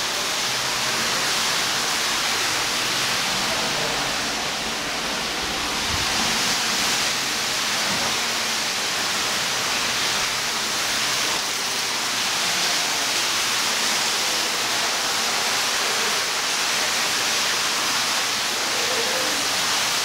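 Steady rushing hiss of indoor room ambience, with faint distant voices now and then.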